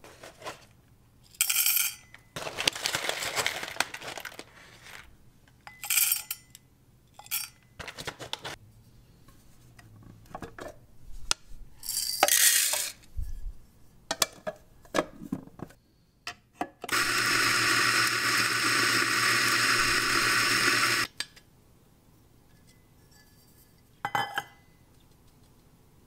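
Coffee beans and metal clinking and rattling in a stainless dosing cup. Then an electric coffee grinder runs steadily for about four seconds and stops abruptly, followed by a short knock near the end.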